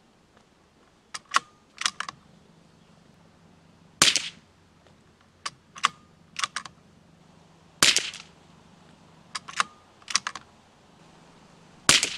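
.22 LR Weihrauch HW66 rimfire rifle with a suppressor firing SK Rifle Match rounds: three shots about four seconds apart. Between shots the bolt is worked with a few sharp metallic clicks, cycling the spent case out and the next round in.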